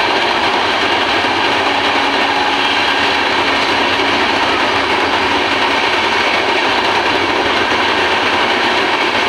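Loud, steady running noise of passenger trains on the rails, heard at a barred coach window while another passenger train passes close alongside on the next track.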